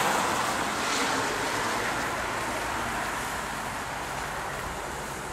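Tyre hiss from a vehicle passing on a wet road, fading away.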